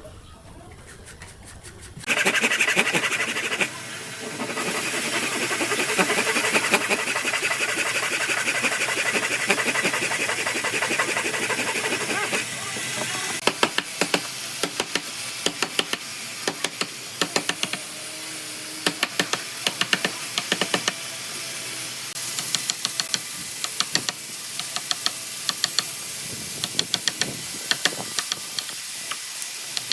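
Tools working wood: a loud, rough grinding hiss starts about two seconds in and runs for about ten seconds, then gives way to quieter scraping with many sharp knocks.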